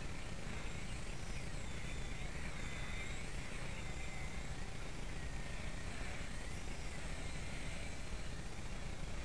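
Blade Nano micro RC helicopter flying aerobatics, its high whine rising and falling in pitch every second or so, over a steady low rumble.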